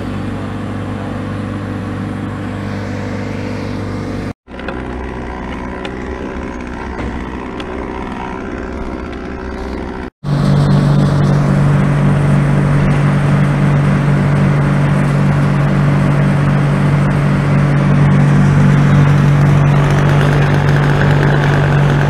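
A large engine running at a steady speed, broken by two brief dropouts at clip cuts, about four and ten seconds in; after the second cut it is much louder.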